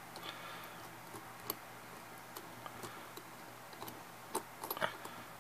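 Faint scattered clicks and ticks of small metal lock parts being handled as a practice pin-tumbler lock is taken apart by hand, with a quick run of clicks near the end.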